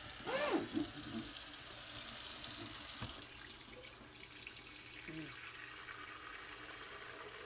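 Kitchen tap running water into a container, loudest for the first three seconds and then quieter.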